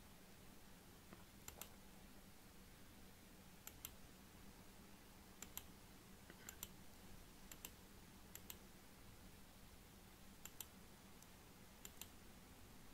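Faint computer mouse clicks, each a quick double tick, about eight of them scattered irregularly over near-silent room tone with a low steady hum.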